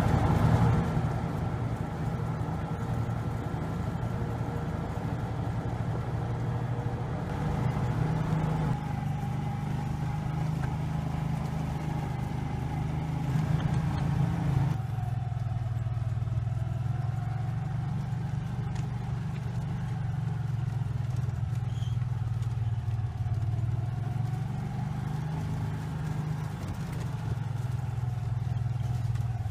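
Engine of a Kawasaki Mule utility vehicle running steadily while being driven, its pitch rising and falling a little with the throttle.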